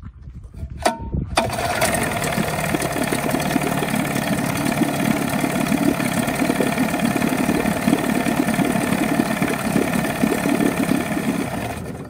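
1984 Johnson 25 hp two-stroke outboard engine starting about a second in, then running steadily in a water test tank, and stopping at the very end.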